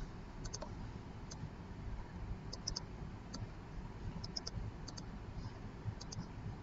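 Computer mouse and keyboard clicks: about a dozen short, sharp clicks scattered irregularly, often in quick pairs or threes, over a faint low background hum.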